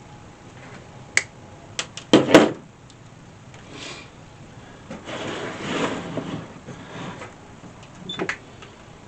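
Handling noises while wires are hooked up to the back of a diesel heater: a few sharp clicks and knocks, loudest about two seconds in, then a couple of seconds of rustling, and one more click near the end.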